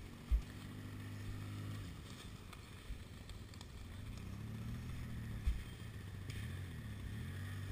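ATV (quad bike) engines running on a forest trail, holding steady and then revving up and down about halfway through, with a couple of dull knocks.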